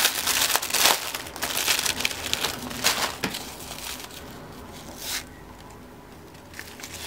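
Clear plastic packaging crinkling and rustling as it is handled and opened. It is loudest in the first second or so and fades out after about four seconds, with one short crackle a little after five seconds.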